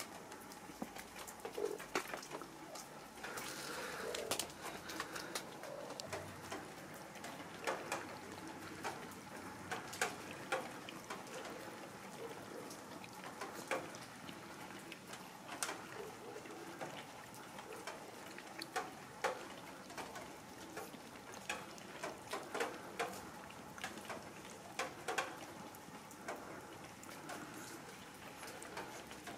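Cats eating food from plastic trays: irregular small clicks and smacks of chewing and licking, several a second.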